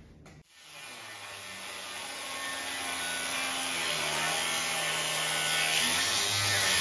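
Angle grinder with a thin cut-off wheel cutting through steel plate: a steady grinding hiss that starts about half a second in and grows louder.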